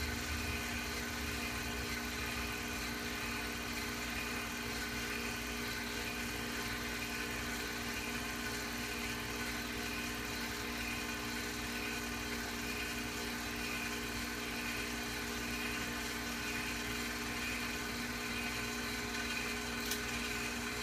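Film projector running: a steady motor whir and hum, with a single click near the end.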